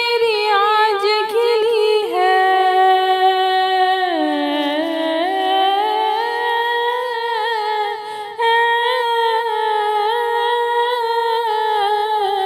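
An unaccompanied solo voice hums a long wordless melodic passage of an Urdu devotional song. It holds long notes, sliding down about four seconds in and slowly rising again, with a short break just after eight seconds.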